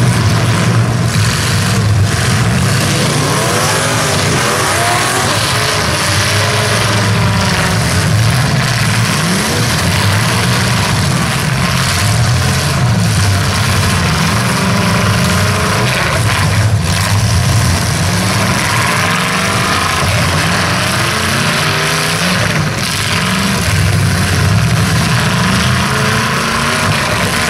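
Several demolition derby cars' engines revving hard, their pitches climbing and falling over one another, with a few sharp knocks.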